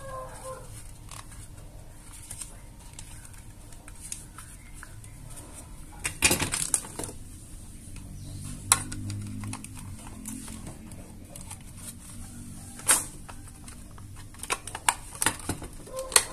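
Scattered clicks and knocks of a plastic power-adapter case and its circuit board being handled and fitted together, with a denser clatter about six seconds in. A chicken clucks briefly at the start.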